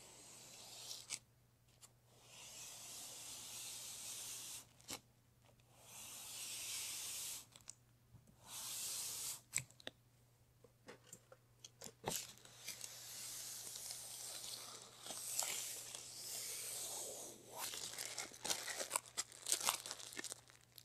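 Paper transfer mask being peeled off a dry-applied vinyl hood graphic in several long ripping pulls with short pauses between them, ending in a run of quick crackles.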